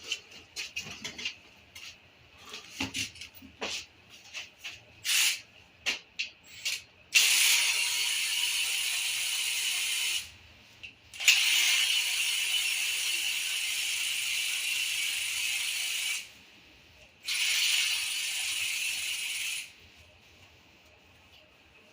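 Tools clicking and knocking against metal engine parts, then an air tool run in three steady bursts of a few seconds each, the second the longest, as parts of a Toyota 2AR-FE engine are taken apart.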